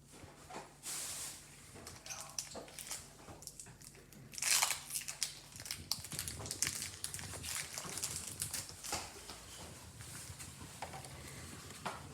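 Pokémon card booster pack being handled: the foil wrapper crinkling and the cards rustling and clicking together, with a louder rustle about four and a half seconds in.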